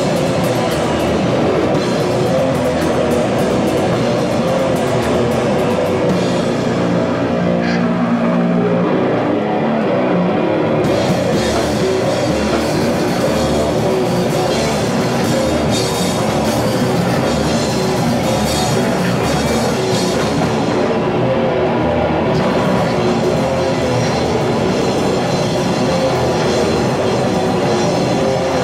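Goregrind band playing live: heavily distorted guitar and bass over fast, dense drumming, loud and steady. About six seconds in the cymbals thin out and a held low chord rings for a few seconds, then the full drumming with cymbals comes back in about eleven seconds in.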